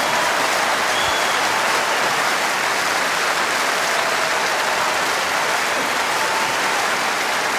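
A steady, even hiss of noise that holds the same level throughout, with a few faint, brief tones over it.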